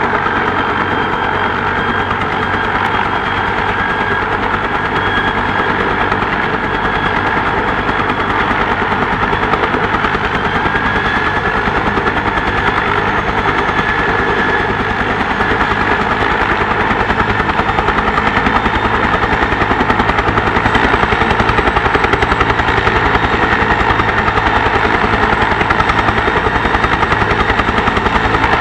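Bell 212 helicopter running on the ground with its two-bladed main rotor turning: a rapid, even blade chop under a steady high whine from its twin turboshaft engines. It gets a little louder about two-thirds of the way in.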